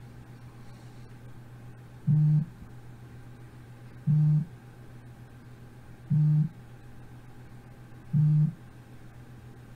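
A low buzz sounds four times, about two seconds apart, each lasting about a third of a second, over a steady low electrical hum.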